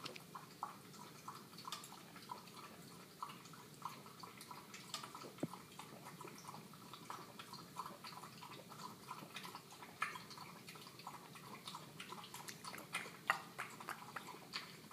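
Cairn terrier puppy lapping water from a stainless steel bowl: a steady run of small laps, about three a second, faint throughout.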